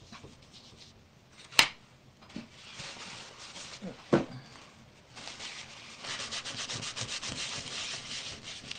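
Ink being rubbed onto crackle-textured paper with quick back-and-forth strokes, in a short spell and then a longer, steady one. There is a sharp click about a second and a half in and a smaller knock around four seconds.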